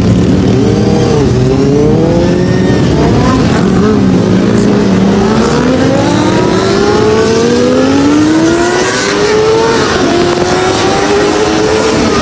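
Motorcycle engine accelerating hard. Its pitch climbs, drops back at each gear change and climbs again, with one long rising pull in the middle and a drop near the end.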